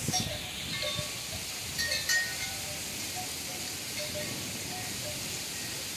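Steady hiss of heavy thunderstorm rain, with a few faint short pitched sounds and a slight swell about two seconds in.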